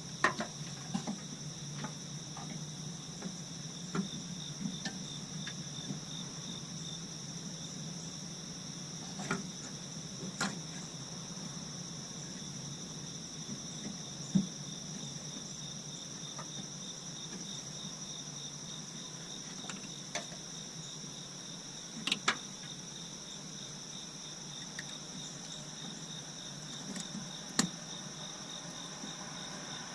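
Steady insect chorus of crickets, with a high pulsing trill and a steady higher tone underneath. Scattered sharp clicks and knocks from the headlight bulb installation work, about ten of them, spread unevenly.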